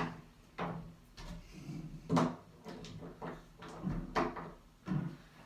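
A newly installed doorknob handle set being handled, giving a series of separate clicks and knocks from its parts and mounting bolts as it is tightened and worked.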